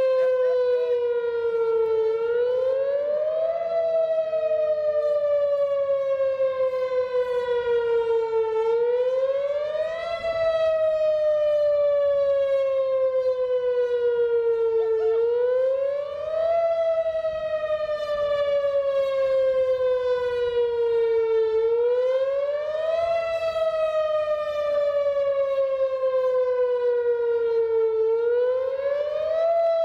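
Electronic outdoor warning siren with four 1,000-watt horns, sounding a wail during a test. Its pitch climbs quickly, then falls slowly, repeating about every six and a half seconds.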